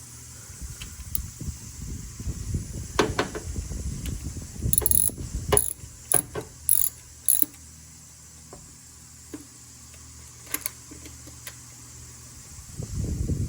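Hand tools clicking and clinking against metal during spark plug work, with scattered sharp clicks and low handling knocks. The busiest stretch is the first half, there are a few clicks after that, and another knock comes near the end.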